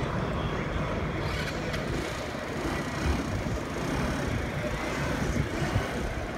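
Steady low rumbling street noise outdoors, with no clear single event standing out.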